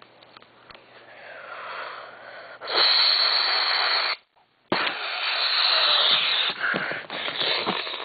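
Loud, breathy wheezing from a person, in two long stretches with a brief break about four seconds in.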